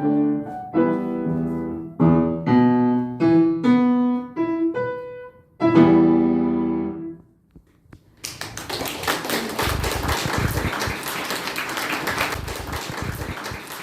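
Piano playing a run of chords, the last one held and dying away about seven seconds in. After a short silence, an audience applauds.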